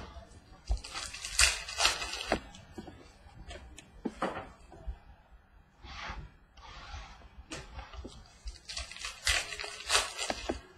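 Trading cards being handled and laid down on a table: about four brief rustling swishes as cards are slid and flipped, with light taps between as they are set onto stacks.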